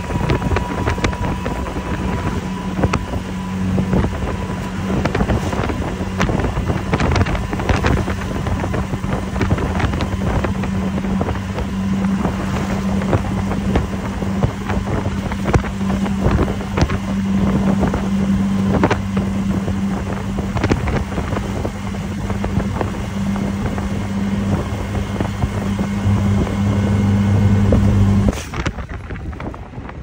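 Riding in a moving motor vehicle: a steady low engine drone with frequent rattles and knocks, and wind buffeting the microphone. It cuts off abruptly near the end.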